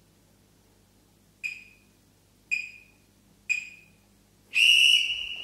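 Workout interval timer counting down: three short beeps a second apart, then one longer, louder beep at the same pitch, marking the end of the work interval.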